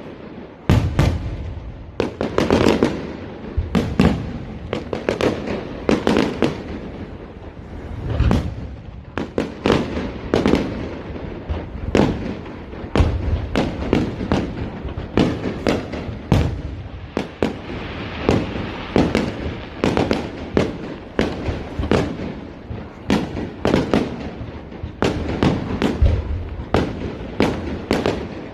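Fireworks display: a steady barrage of sharp bangs, often one or two a second, with crackling bursts between them.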